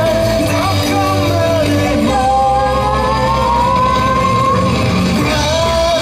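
Yosakoi dance song played loudly: a sung melody over a steady beat, with a long held note that slowly rises in the middle.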